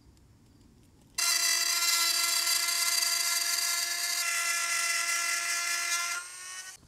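A Dremel high-speed rotary tool cutting a hole in a clear acrylic panel. It starts abruptly about a second in and runs with a steady high-pitched whine for about five seconds, then is switched off and spins down with a falling whine near the end.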